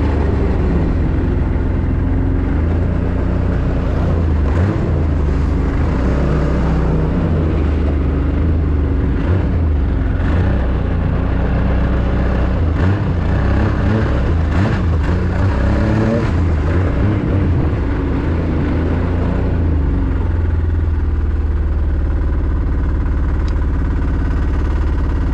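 Yamaha snowmobile engine running under way, its pitch rising and falling with the throttle, then settling to a steady idle about twenty seconds in as the sled stops.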